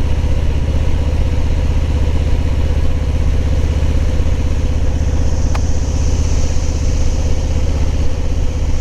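Harley-Davidson touring motorcycle's V-twin engine running steadily, with a high, droning chorus of cicadas that swells up about halfway through. A single brief click sounds near the middle.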